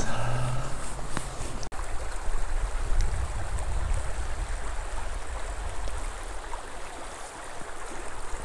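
Shallow spring-creek riffle running over stones, a steady rush of flowing water with a low rumble underneath.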